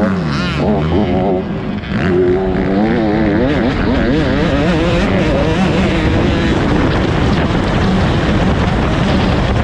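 85cc two-stroke motocross bikes on the track, engines revving up and down over and over as the riders work the throttle.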